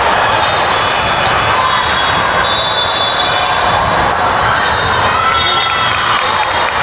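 Loud, steady din of a volleyball tournament gym: balls bouncing and being struck, and crowd chatter echoing in the hall, with short squeaks scattered through it.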